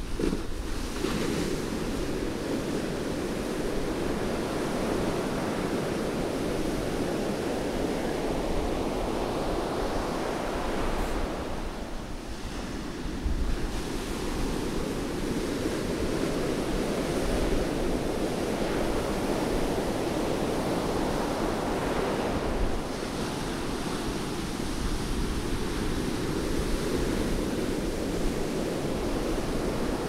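Rough surf breaking on a sandy beach: a continuous rush of breaking waves and foam that swells and eases, with a fresh breaker crashing in about every ten seconds.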